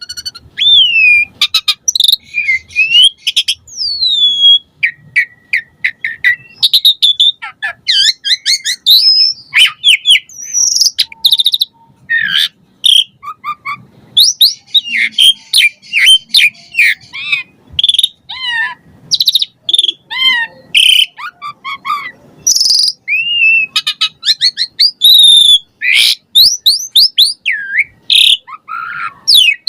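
Asian pied starling (jalak suren) singing hard in a fast, near-continuous medley of whistles, rising and falling glides, chirps and quick clicking rattles. The many changing phrases are the varied fill-in song that keepers prize.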